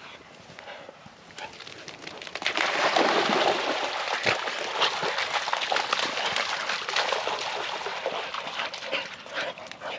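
Springer spaniels splashing and running through a shallow channel of water, starting about two and a half seconds in.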